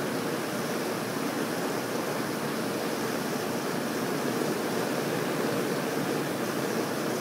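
Steady rushing background noise, even and unbroken, with no distinct knocks or clicks.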